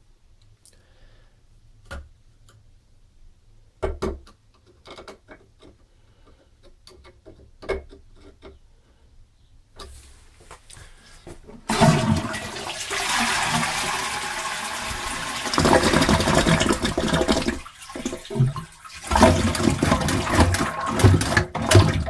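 Lever-flush toilet cistern flushing with its water supply shut off at the isolation valve: a sudden rush of water about 12 seconds in, briefly breaking off near 18 seconds and then rushing again, as the cistern is emptied. Before it, a few faint clicks and knocks.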